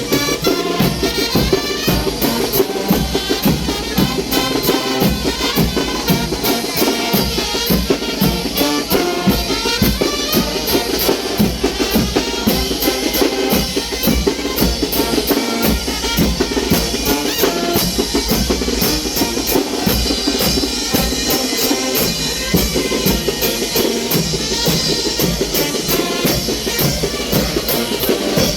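Wind band (banda de viento) playing chinelo dance music at full volume, with a steady, driving drumbeat of bass drum, snare and cymbals.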